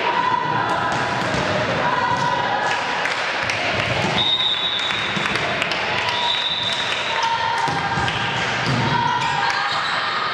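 Volleyball being served and struck, with repeated thuds of hand on ball and ball on floor ringing in a reverberant sports hall, and players' voices calling out.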